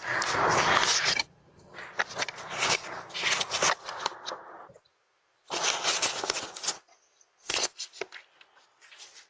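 Rustling and scuffing noises in irregular bursts, picked up by a doorbell camera's microphone.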